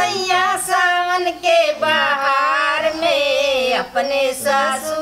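Women singing a Bhojpuri kajari folk song unaccompanied, a held, wavering melodic line with short breaks between phrases.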